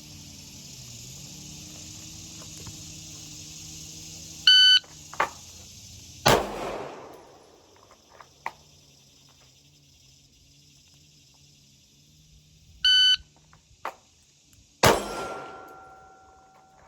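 Shot timer beeps and a single 9mm pistol shot follows under two seconds later, twice, as the shooter draws from the holster. The beeps are the loudest sounds. A few small clicks come between them, and crickets trill steadily through the first half.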